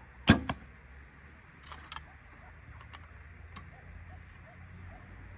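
A JigSaw Phi traditional bow shot: a sharp, loud string snap as the arrow is released about a third of a second in, followed a fifth of a second later by a second, weaker crack. Then a few soft clicks as the next arrow is handled and nocked.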